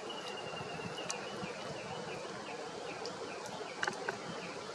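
Woodland ambience with a steady, high, wavering trill running through most of it, and a couple of faint short clicks.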